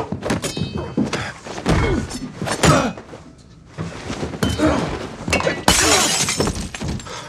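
Movie fight sound effects: a rapid series of hits and thuds with glass shattering, a short lull around three seconds in, then a louder burst of breaking glass just before six seconds in.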